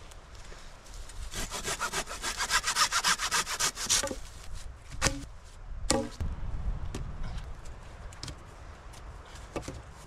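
Hand saw cutting through a thin pine pole in a quick run of back-and-forth strokes, stopping after a few seconds. Two sharp wooden knocks follow about a second apart, then light rustling.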